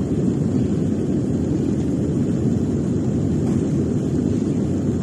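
Mount Ruang stratovolcano erupting: a steady, deep rumble with no breaks.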